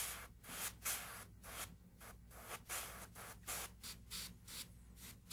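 Airbrush spraying paint in short, repeated bursts of hiss, about two or three a second, as the trigger is pulsed on and off to shade feathers along a template.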